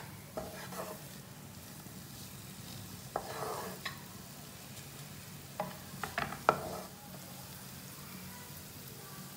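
Spatula stirring and scraping diced potatoes and onions around a nonstick frying pan, with a faint sizzle from the mixture, cooked dry without oil. A few sharper scrapes and taps come in the middle, the loudest about six and a half seconds in, over a steady low hum.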